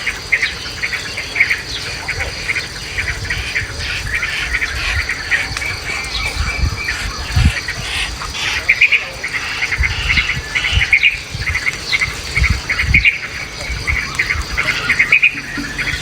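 Birds chirping in quick, repeated short notes, many calls overlapping, with wind gusting in low rumbles on the microphone.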